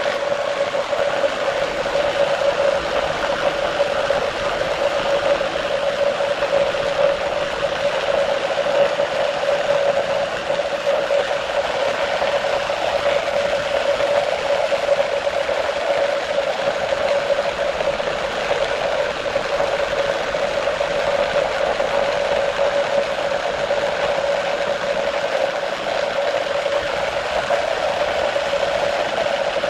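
Electric motor of a homemade jigsaw running steadily with a constant hum and a rattle.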